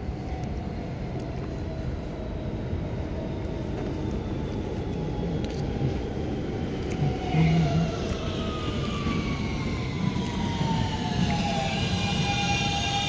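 New York City subway train (N train) pulling into the station: a steady low rumble of wheels on the rails, with the electric motors' whine falling in pitch as it slows, settling into steady tones near the end.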